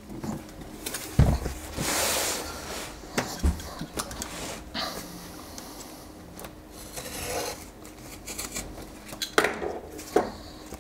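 Cardboard sliding and scraping against cardboard as an inner box is pulled out of its outer shipping box, with a heavy thump about a second in and a few lighter knocks and rustles of handling.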